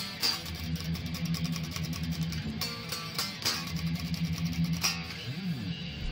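Electric Stratocaster-style guitar with light ash body and maple neck, played through a tube preamp rig with delay and reverb: quick picked notes over ringing low notes, with a short pitch bend about five seconds in.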